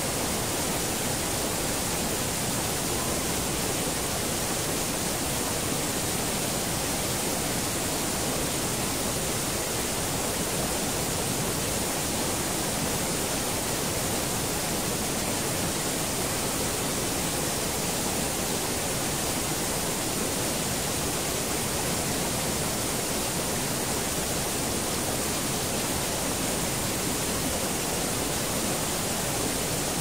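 Steady, even rush of water falling from a tall waterfall.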